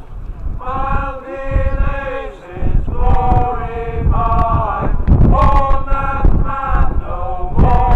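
A series of held, pitched notes, each about a second long and stepping from one pitch to the next in a chant-like melody. Heavy wind rumble on the microphone runs under them.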